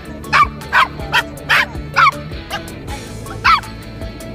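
Toy poodle yapping: five short, high-pitched barks in quick succession, then one more after a pause.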